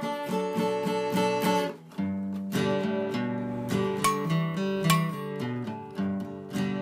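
Background acoustic guitar music, plucked and strummed notes.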